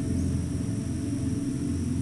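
Steady nature ambience: a faint, continuous high insect trilling over a loud, low, steady rumble.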